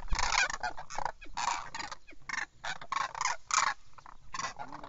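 Demoiselle cranes calling: a run of short, repeated calls, about two a second, from the flock.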